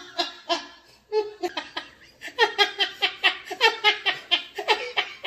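A woman laughing hard: a few short bursts at first, then from about two seconds in a fast run of belly-laugh pulses, about five a second.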